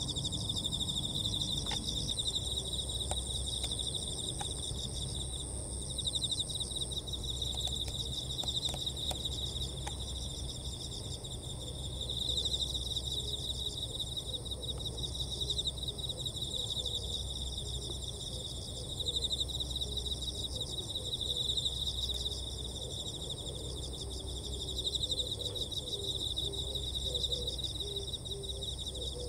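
Steady chorus of insects: a continuous shrill buzz with a fine pulsing texture, over a low rumble of background noise.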